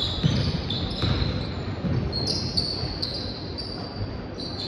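A basketball bouncing on a gym floor during play, with short high-pitched squeaks of sneakers on the court.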